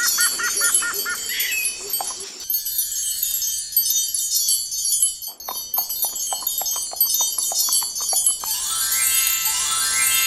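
Cartoon sound effects of magical tinkling chimes and sparkles. About halfway through comes a quick run of light ticks, roughly five or six a second, and near the end a shimmering chime sweep rises in pitch.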